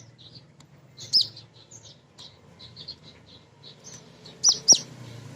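Female kolibri ninja (sunbird) chirping and calling. A rapid run of short high chirps, with a louder sharp falling note about a second in and a pair of loud sharp notes near the end.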